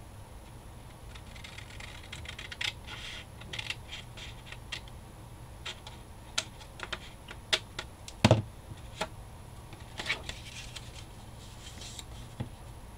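Scissors snipping through patterned scrapbook paper in short, irregular cuts, trimming a little at a time. A louder knock comes about eight seconds in.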